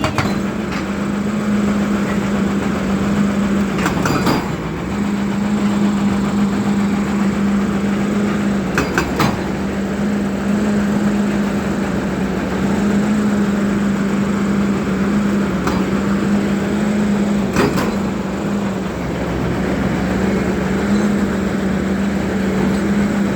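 Volvo excavator's diesel engine running steadily, its hum stepping slightly up and down in pitch, with a few sharp metallic clanks.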